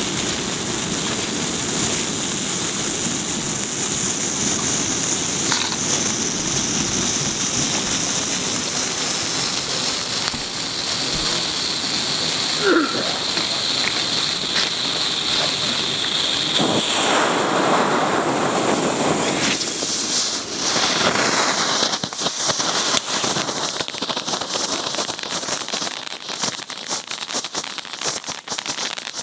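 Panda GP1340 Skull fountain battery burning with a steady loud hiss of spraying sparks. Its tone changes about two-thirds of the way through, and in the later part rapid crackling comes in over the hiss.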